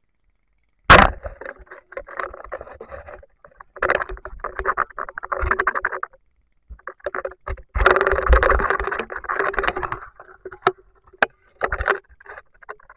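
A sharp knock about a second in, then bursts of water splashing and sloshing with scattered clicks, loudest around eight to ten seconds in, as a spear fisher moves in shallow river water and lifts a speared giant freshwater prawn out of it.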